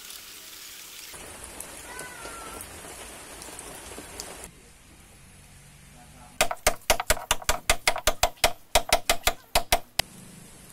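A quick run of sharp, ringing metal-on-metal hammer strikes, about five or six a second, starts some six seconds in and stops abruptly after about three and a half seconds. It fits a hammer driving a caulking iron to pack cotton rope caulking into a wooden hull's seams.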